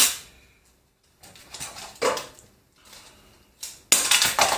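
Clear adhesive tape being pulled off the roll in several short, noisy rips, the longest and loudest near the end.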